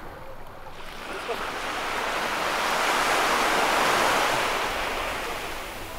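Sea wave breaking and washing up the beach, swelling over a couple of seconds and then fading away.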